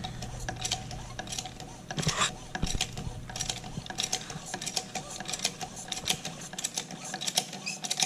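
Hand-pumped hydraulic hose coupling expander being pumped with its long lever, giving a steady run of metallic clicks and knocks as pressure builds to expand a coupling into 1¾-inch fire hose.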